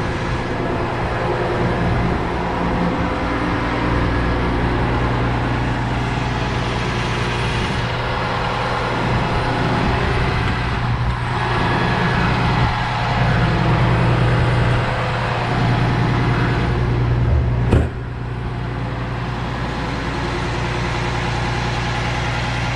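450 hp Cummins inline-six diesel of a Winnebago Tour 42HD diesel-pusher motorhome running steadily at high idle. A single sharp click comes near the end, after which the drone is slightly quieter.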